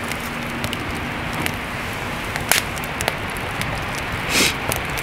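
Wood fire burning in an open fire pit: a steady hiss with scattered crackles and pops, and a brief louder burst about four seconds in.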